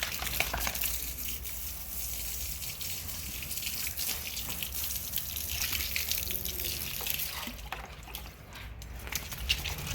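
Running water splashing and dripping over a dog being rinsed during a bath. The flow thins out about eight seconds in.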